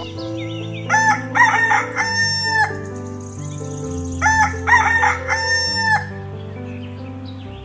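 Rooster crowing cock-a-doodle-doo twice, about a second in and again at about four seconds, over background music.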